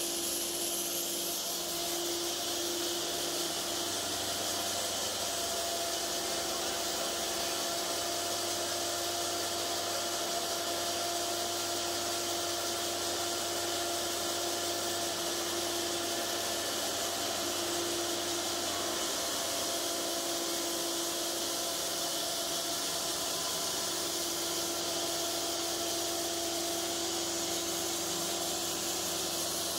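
Cook's AC-36 bandsaw mill running steadily, its engine and band blade going with a strong high hiss as the saw head travels along a cant. A low hum in the sound fades about two-thirds of the way through.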